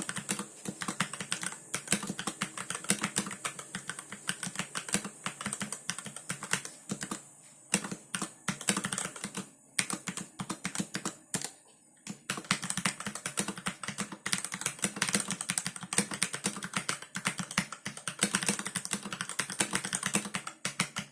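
Keys of a RAKK Lam-Ang Lite mechanical keyboard being typed on in fast, continuous runs of clicks, with a few short pauses about a third and about halfway through.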